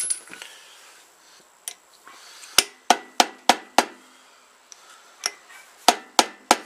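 Hammer tapping the flywheel of a Tecumseh small engine down onto its crankshaft and key: sharp metal-on-metal strikes with a short ring, a quick run of five taps about three a second in the middle, then several more near the end.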